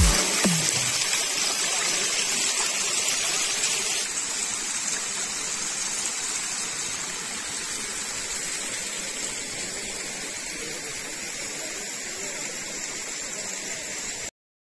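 Water of a small stream cascading over rock ledges, a steady rushing that slowly grows quieter and cuts off abruptly near the end.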